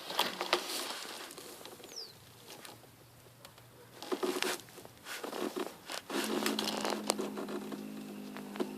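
Rustling and clicking handling noises. About six seconds in, a steady hum joins them.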